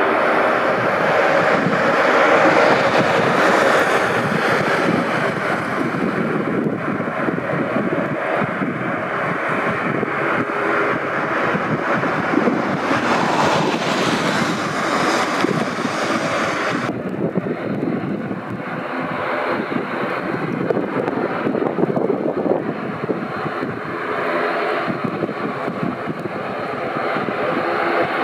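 Twin Pratt & Whitney PW127-series turboprop engines of ATR 72-600 airliners running: a steady propeller drone with a loud hiss. About two-thirds of the way through the sound changes abruptly, the higher hiss dropping away.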